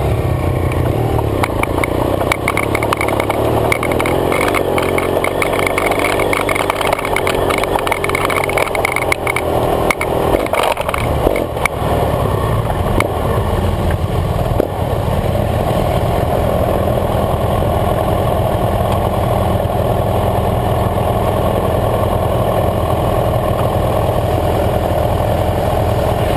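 BMW F 800 GS parallel-twin engine running throughout, heard from the bike's own camera. Over the first half, gravel and track clatter come with it; after about halfway it settles into a steadier, even run.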